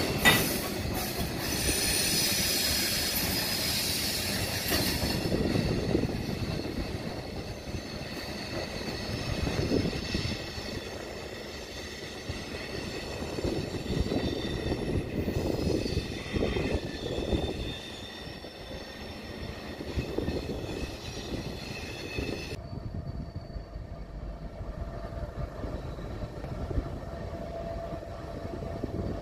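Freight train of tank cars rolling through a curve, its wheels squealing in several steady high tones over a low rumble and clatter. About three-quarters of the way through, the squeal cuts off abruptly, leaving only a quieter train rumble.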